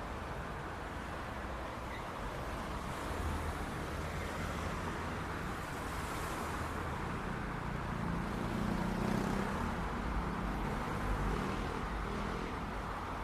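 City street traffic: a steady rumble and hiss of cars on the road. An engine hum grows louder about eight seconds in and fades again a few seconds later, as a vehicle passes close by.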